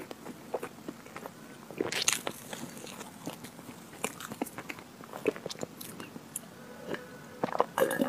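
Close-miked chewing of chocolate ice cream cake: soft, wet mouth clicks and smacks as she bites and chews.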